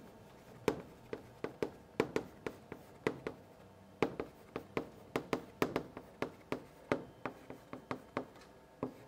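Chalk writing on a blackboard: an irregular run of sharp chalk taps and short scratches, about two or three a second, with a couple of brief pauses.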